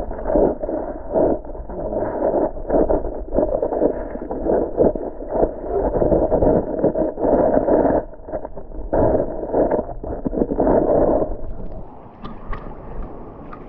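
Creek water heard through an action camera held underwater in its waterproof case: a loud, muffled churning with many small knocks. Near the end it drops in level as the camera comes up to the surface.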